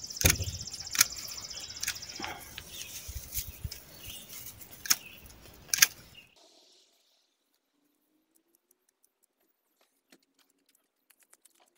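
Bypass hand pruners snapping shut on oregano stems: several sharp clicks over the first six seconds. A high, steady buzz sits over the first two seconds, and a little past six seconds the sound drops to near silence.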